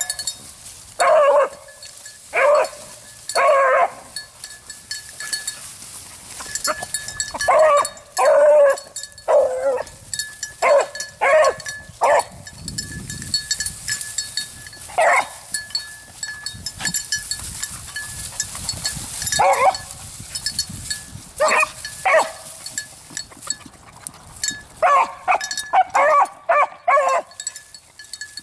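A beagle bays in short repeated calls that come in bunches, with pauses of a few seconds between them. It is a hound giving voice as it runs a rabbit's scent trail.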